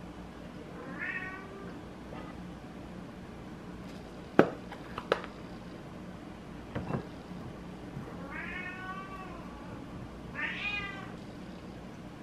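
A house cat meowing three times: a short meow about a second in and two longer, rising-then-falling meows near the end. In between, a few sharp clicks and knocks of kitchenware, the loudest about four seconds in.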